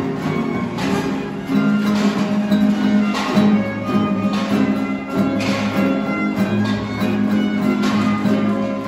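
Acoustic guitar and violin playing dance music together, with a steady plucked rhythm under held string notes.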